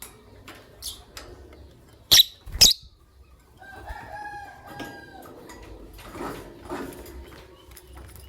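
Lovebirds chirping and calling in short notes, with two very loud, sharp sounds half a second apart about two seconds in.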